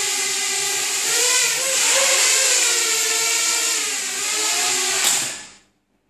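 Parrot Bebop quadcopter's four propellers whining while it hovers, the pitch rising and falling a little as it manoeuvres. About five seconds in, the motors wind down and stop within half a second as the drone sets down on the floor.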